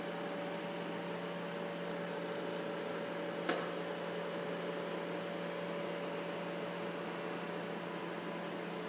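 Steady electrical hum of laboratory machinery, with several fixed tones over a hiss. It is broken by a faint tick about two seconds in and a sharper click about three and a half seconds in.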